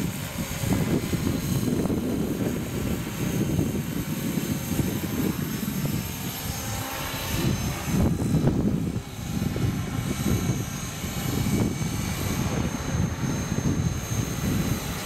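Radio-controlled scale Bell LongRanger helicopter in flight. Its engine and rotor whine rise and fall in pitch as it passes, over a gusty low rumble.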